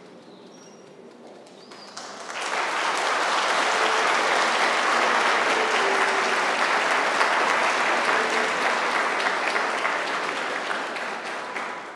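A congregation applauding. The clapping starts about two seconds in, swells quickly to a full, steady round, and fades away near the end.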